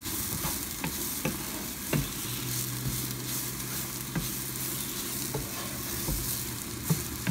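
Riced cabbage frying and sizzling in oil in a nonstick pan while it is stirred with a wooden spatula. The spatula knocks against the pan irregularly, about once a second.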